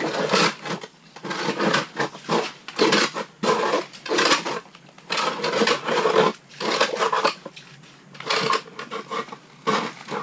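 Hard, irregular knocking and scraping of a hand tool chipping at jagged ice in a fishing hole, several strikes a second with short pauses.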